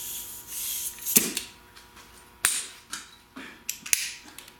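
Compressed air hissing as the pressure is let off a leak-down tester connected to a cylinder, fading out about a second in, then a few sharp clicks and knocks from the tester's fittings being handled.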